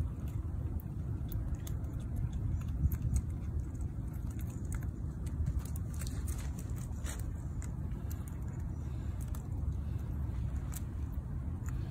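Steady low outdoor rumble, with faint sharp clicks scattered through it.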